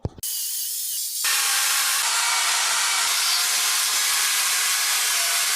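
Carving chainsaw running at high throttle and cutting into the wood, a steady hissing whine that gets louder and fuller about a second in as the cut deepens.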